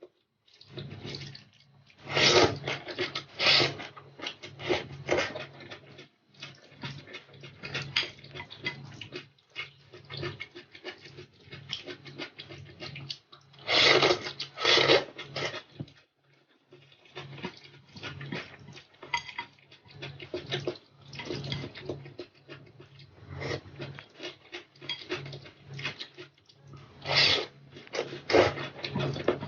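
Close-miked eating sounds: irregular chewing, smacking and slurping, loudest in short clusters about two seconds in, around the middle and near the end, over a steady low hum.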